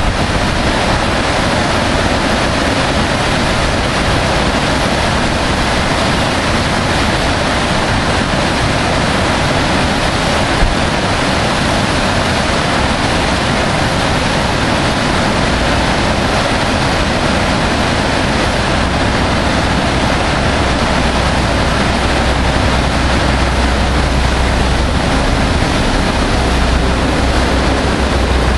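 Loud, steady rushing of whitewater rapids on a steep, boulder-strewn alpine river, a constant noise with no let-up; a low rumble joins it about halfway through.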